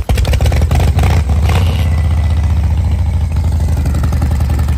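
Motorcycle engine running loud at a steady idle with a fast low pulse, coming in abruptly at the start.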